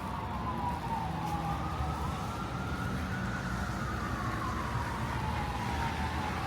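Emergency vehicle siren wailing, its pitch sliding slowly down and back up about every three to four seconds, over a steady low rumble of city traffic.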